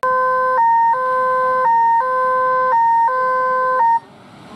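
Electronic two-tone siren: a lower tone and a higher tone alternating about once a second, four times over, then cutting off abruptly about four seconds in.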